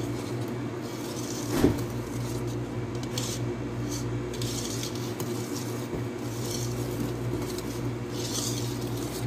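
Wire whisk folding whipped egg whites into cake batter in a stainless steel bowl: soft wet swishing strokes every second or so, with one knock of the whisk against the bowl about one and a half seconds in. A steady low hum runs underneath.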